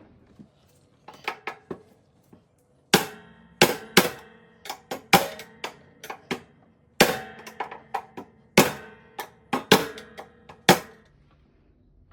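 Hammer blows on metal as a part of a Whirlpool/Kenmore top-load washer is driven further in for clearance: a few light taps, then about a dozen hard, irregular strikes, each with a ringing metallic tone.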